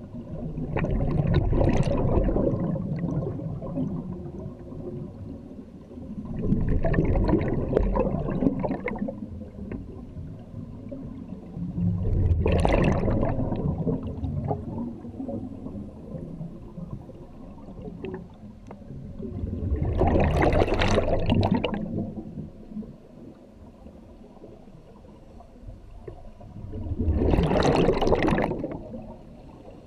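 Scuba diver breathing out through a regulator: five rushes of exhaled bubbles, each lasting about two seconds and coming every six to seven seconds, with quieter gurgling between breaths.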